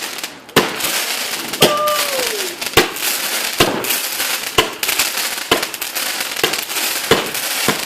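Consumer firework going off: a steady crackling hiss broken by sharp pops about once a second, eight in all.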